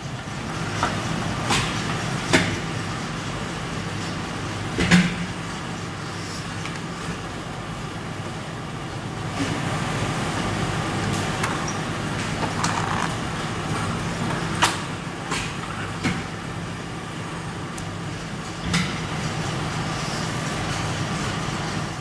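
Steady hum of a silicone rubber compression moulding press, with sharp metal clanks and knocks every few seconds as the mould plates are handled and slid into the press.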